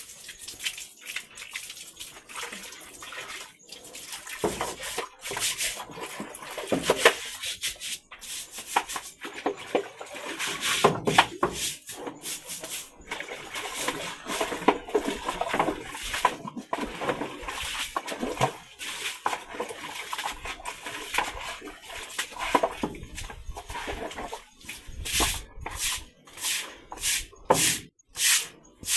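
Wet pig pen floor being washed and scrubbed: sloshing water and irregular scraping swishes, turning near the end into regular scrubbing strokes about two a second.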